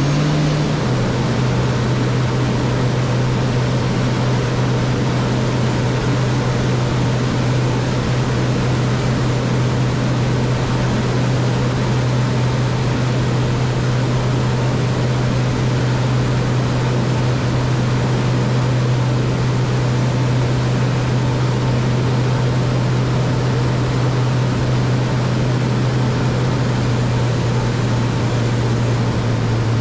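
DN Solutions Puma TT2100 CNC lathe spindle running steadily at speed with a loud steady hum and hiss while finish-turning the face and outside diameter of a part.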